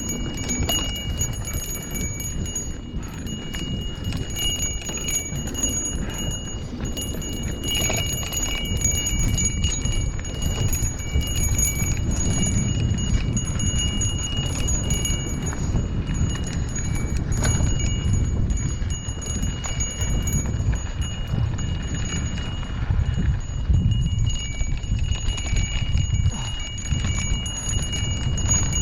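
Riding noise on a Lime rental: continuous wind and road rumble, with a thin high whine that fades in and out.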